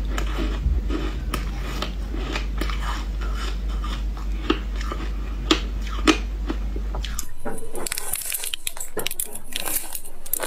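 Close-up chewing of frozen passion-fruit ice, with sharp cracks of ice crunching between the teeth over a steady low hum. About seven seconds in the hum stops and brighter crackling and clicks of ice follow.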